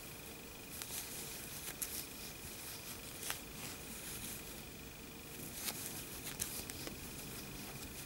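Faint rustling and small soft clicks of a crochet hook drawing yarn through stitches while making double crochets, over a faint steady hum.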